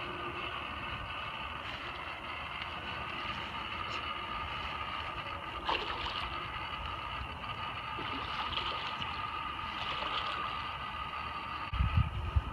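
Steady whirring hum of the inflatable costume's battery-powered blower fan, with a few low thumps near the end.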